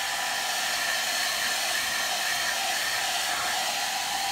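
Handheld hair dryer running steadily, a constant rush of blown air with a faint whine. It is blowing hot air onto a freshly painted leather car seat patch to dry the coat of leather paint.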